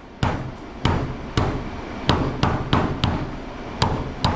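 Hammer blows breaking apart scrapped electronic equipment, about nine sharp strikes at an uneven pace of roughly two a second, each with a brief ring.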